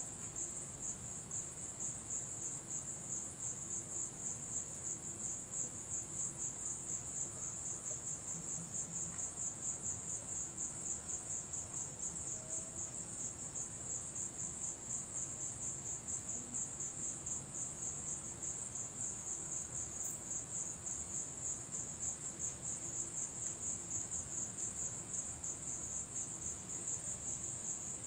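Crickets chirping in a steady, high-pitched, evenly pulsing trill that runs on without a break.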